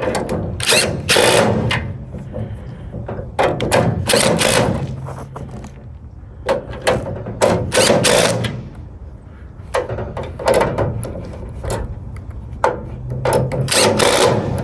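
Cordless DeWalt 1/4-inch impact driver with an extension and impact socket hammering in short bursts of about a second, several times, running bolts down into a steel tool cart.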